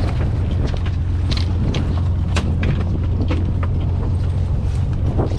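Boat engine and hydraulic crab-pot hauler running in a steady low drone, with scattered sharp knocks and clatter as a crab pot is handled on deck.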